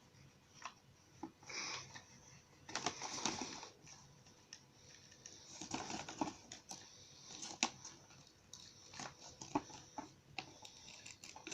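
Paper being handled while a glue tape roller is run along folded paper boxes: irregular light clicks, taps and short rustles.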